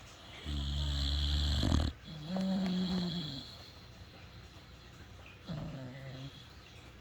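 A sleeping pet snoring: a long, deep snore, then a shorter, higher-pitched one, and a fainter snore near the end.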